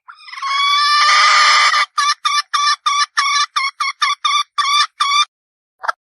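A red junglefowl hen calling: one long, harsh, drawn-out note, then a run of about a dozen short, evenly spaced clucks, about three or four a second, and one more cluck near the end.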